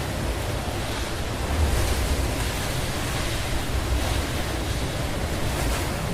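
Strong typhoon wind rushing and buffeting the microphone, a steady roar with low rumbling gusts.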